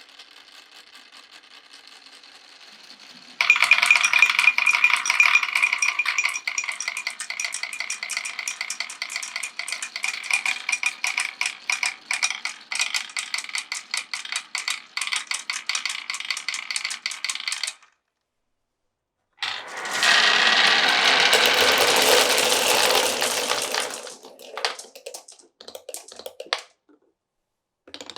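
Many marbles clattering and rattling down a wooden marble run, a quiet rolling that breaks into a sudden loud stream of rapid clicks about three seconds in. It stops abruptly, then a second loud rush of rattling marbles thins out into scattered clicks.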